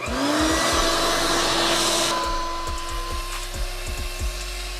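Vacuum cleaner switched on, its motor whining up to speed within a moment and then running steadily, used to siphon old gasoline out of a car's fuel tank.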